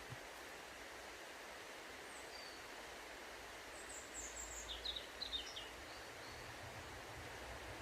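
Small woodland birds chirping in short, high notes, with a quick flurry of chirps about four to five seconds in, over a steady rushing hiss of flowing water.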